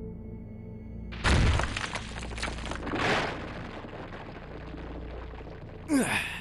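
Cartoon sound effect of ice breaking apart. A sudden loud shattering crash comes about a second in, a smaller crash about three seconds in, and a short burst with a falling glide near the end, over low background music.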